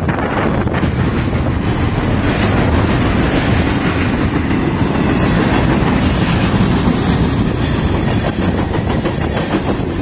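Union Pacific military train's loaded flatcars rolling past close by: a steady, loud rumble of steel wheels on rail with a running clickety-clack of wheels over rail joints.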